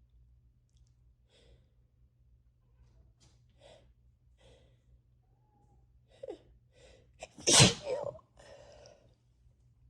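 A person with a head cold sneezing once, loudly, about three-quarters of the way in, after several short catching breaths that come faster just before it. A breathy exhale follows the sneeze.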